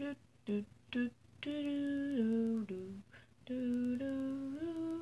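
A young woman humming a tune with her mouth closed: a few short notes, then long held notes that step down in pitch, a brief pause, and more long notes that step up again.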